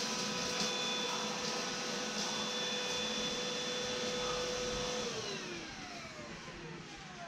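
Dibea ST1601 cordless stick vacuum running on max power with a steady motor whine. About five seconds in, the whine falls in pitch and fades as the motor winds down.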